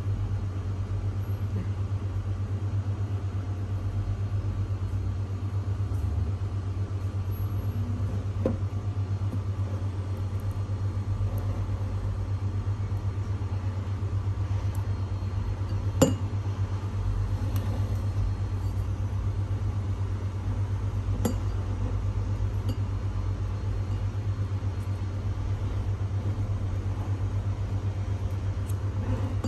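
Steady low machine hum, with a few sharp clinks, the loudest about halfway through.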